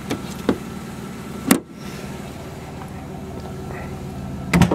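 Sharp clicks and knocks from handling the rear hatch of a 1998 Plymouth Voyager minivan. The loudest click comes about a second and a half in, and a heavier thump near the end as the hatch handle is pulled to unlatch it. A steady low hum runs underneath.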